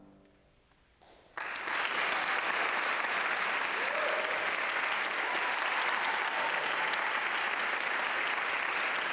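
The last piano chord fades out, and about a second and a half in an audience starts applauding, the clapping steady from then on.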